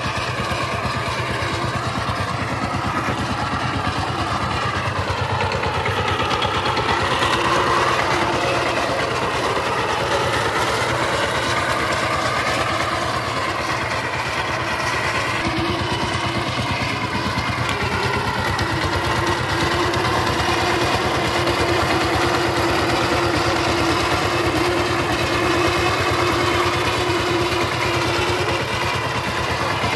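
Single-cylinder diesel engine of a two-wheel power tiller running steadily under load as it drags a leveller across tilled soil, a fast even chugging whose pitch wavers slightly now and then.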